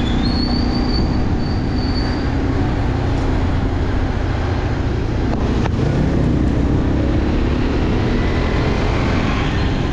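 Motorcycle engine running steadily while riding along a street, under a noisy rush of wind over the microphone. A thin high whistle sounds twice in the first two seconds.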